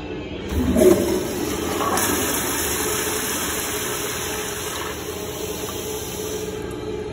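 Commercial flush-valve toilet flushing. A thump about a second in, then a loud, steady rush and hiss of water through the valve and bowl that cuts off near the end as the valve shuts.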